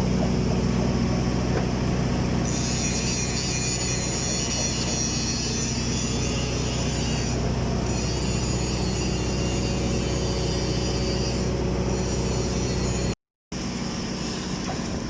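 Automatic girth welding machine running on a tank shell's horizontal seam: a steady machine hum, with a high hiss that comes in twice for several seconds. The sound cuts out briefly about thirteen seconds in.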